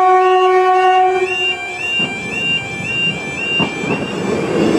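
Level crossing audible alarm yodelling steadily, a repeating rising warble. Over it a Class 158 diesel train's horn holds one long note that dies away after about a second and a half. Then the rumble of the approaching train builds, with a clack near the end.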